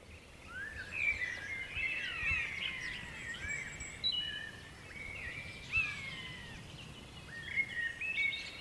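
Several songbirds singing and calling at once: many short chirps and whistled notes, some sliding up or down in pitch, overlapping throughout, over faint low background noise.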